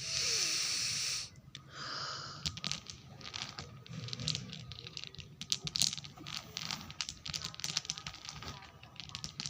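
A long, loud sniff through the nose at mothballs, then a second, shorter sniff about two seconds in, followed by a run of small crinkling clicks.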